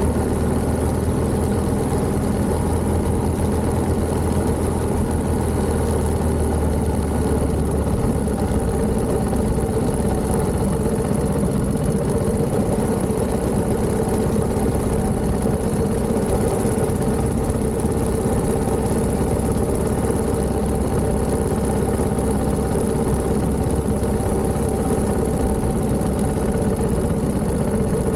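1929 Méray motorcycle's JAP 600 engine running steadily, with no change in speed or pitch and a constant high hiss over it.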